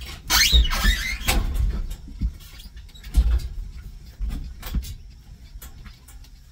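Refrigerator being shoved into the back of a cargo van: metal scraping and squealing as its coils catch on a water heater already loaded, with a loud screech about half a second in and several knocks after.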